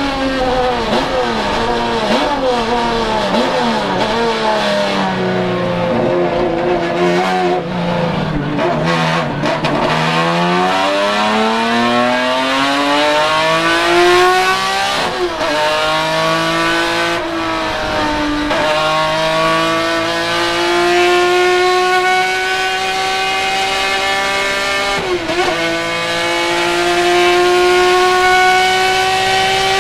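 Ford Capri RS 3100 racing car's naturally aspirated Ford-Cosworth GAA V6, heard from inside the cockpit. The engine note falls as the car slows, with a few quick rev blips on the downshifts, then climbs under full throttle through three upshifts, about 15, 18 and 25 seconds in.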